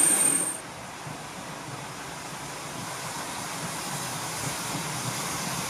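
Steam hissing loudly from a standing steam locomotive, with a steady high tone, cut off about half a second in. Then comes the faint, even sound of a steam train approaching from a distance, slowly growing louder.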